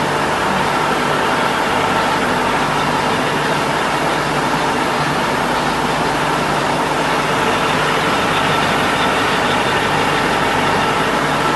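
Tesflex 250 eight-colour flexographic label press running in production: a steady mechanical whir from its rollers and drives, with a few steady tones in it.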